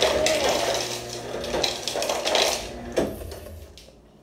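Noodles being slurped from a bowl in a long, wavering slurp that fades out over about three seconds, with one sharp clink of dishware near the end.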